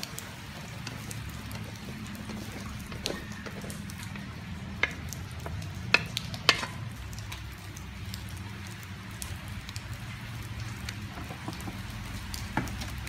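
Food frying and sizzling in a metal wok on a portable gas stove, with a wooden spatula stirring and a few sharp knocks of the spatula against the pan, the loudest around the middle and one near the end.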